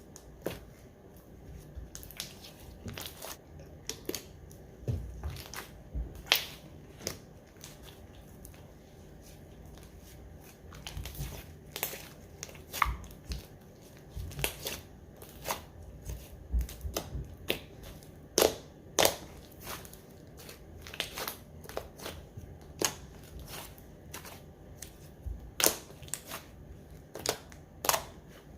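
Hands squishing, pressing and stretching a slime, making irregular sticky pops and clicks, some much louder than others.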